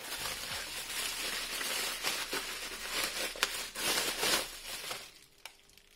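Bubble wrap crinkling as a wrapped unit is handled and lifted out of a cardboard box, with a few sharp crackles. It dies away about five seconds in.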